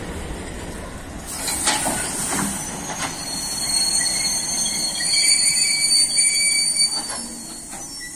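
Freight train rolling past. The empty flat container wagons rumble low at first; from about a second in, loaded hopper wagons pass close with a high, steady wheel squeal in several tones and a few clacks of wheels over the rail joints.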